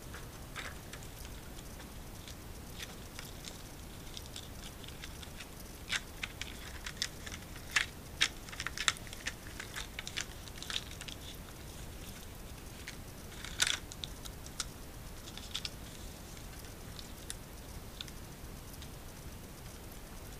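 Small plastic clicks, taps and scrapes from handling the Seagate Central enclosure's plastic cover, drive frame and hard drive during assembly. The clicks come in a busy cluster from about six to eleven seconds in, with one sharper click about two-thirds of the way through.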